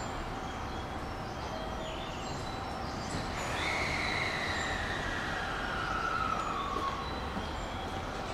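JR West 223-series electric train creeping into the platform: a steady low rumble, with a whine that falls in pitch over about three seconds midway through.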